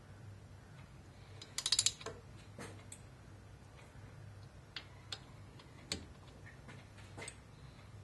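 Torque wrench ratcheting on Twin Cam cylinder head bolts: a quick run of metallic clicks about a second and a half in, then scattered single clicks and taps.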